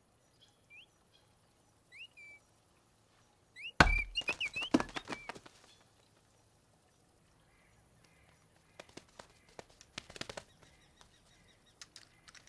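Small birds chirping with short rising calls, then about four seconds in a sudden thump and a quick flurry of chirps and clicks lasting a second and a half. Later come scattered light clicks and ticks.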